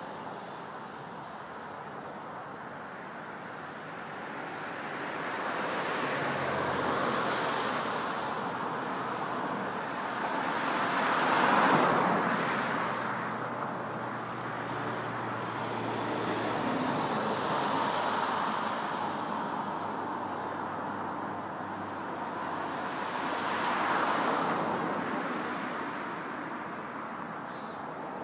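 Road traffic: vehicles passing one after another, each swelling and fading away, the loudest passing about twelve seconds in, with a low engine hum under the first passes.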